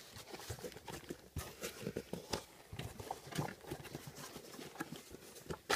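Cardboard shipping box being opened by hand: scattered small taps, scrapes and crinkles as the flaps and packing tape are worked loose.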